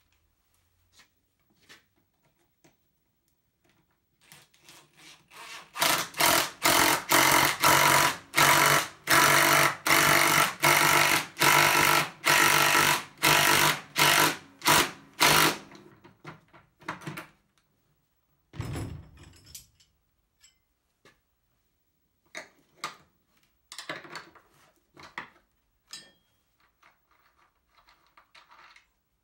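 Cordless drill run in short pulses, about two a second, driving into a wooden overhead beam, then one shorter run a few seconds later. Light knocks and clicks of handling follow.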